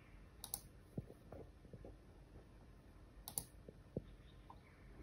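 Faint clicking at a laptop: two sharp double clicks about three seconds apart, with a few soft low knocks between.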